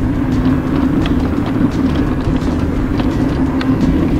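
Mobility scooter riding along a paved road: its motor hums at one steady pitch over a constant rumble of tyres and wind, with light clicks and rattles scattered through.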